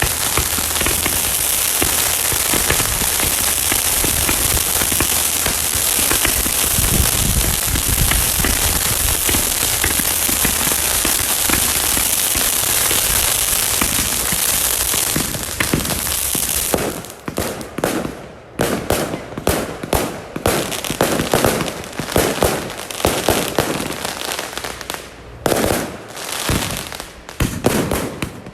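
Fireworks going off: a dense, unbroken crackle for about the first sixteen seconds, then breaking up into separate rapid pops and bangs with short gaps between them.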